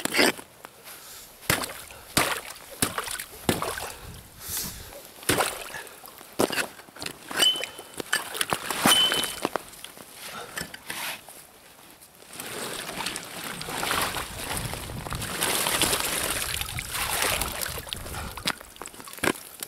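Hatchet chopping pond ice with sharp knocks and ice chunks clattering, then slushy water sloshing and pouring in the second half as a wicker funnel trap is hauled up out of the ice hole.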